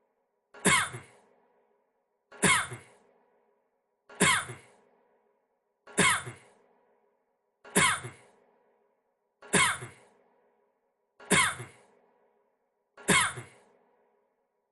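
A man's single short cough, the same recording looped, repeating about every 1.8 seconds, eight times. Each cough starts sharply, drops in pitch and dies away quickly.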